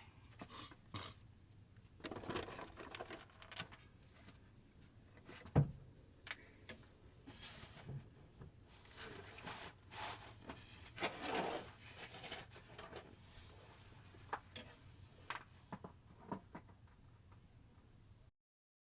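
Irregular clicks, knocks and short scrapes of metal hand tools and bolts being handled while the CCV module's mounting bolts go in on a truck engine. The sound cuts off abruptly near the end.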